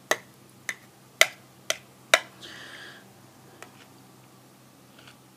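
Close-up chewing of crispy fried tortilla: a run of sharp crunches about two a second, thinning to a few faint ones near the end.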